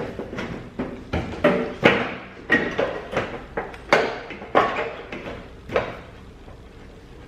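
Irregular knocks and clanks of metal car body parts and tools being handled during fender fitting, about a dozen over six seconds, then stopping.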